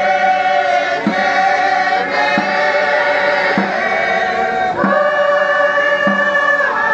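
A choir singing a slow Greek Orthodox Good Friday hymn in long held notes, with a soft low beat about every second and a quarter.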